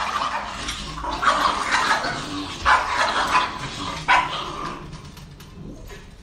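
Dog barking: a run of short barks through the first four seconds or so, weaker after that.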